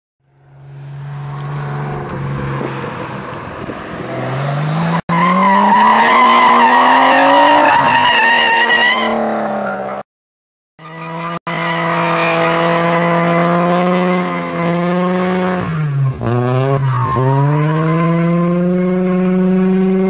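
A drift car's engine held at high revs through a slide, with tyres squealing and scrubbing under it; the engine note climbs, cuts off suddenly about halfway, then comes back held high, dips twice and climbs again near the end.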